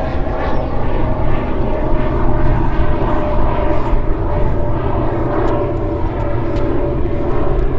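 A steady, unbroken engine drone with a low rumble underneath and a faint held hum, unchanging throughout.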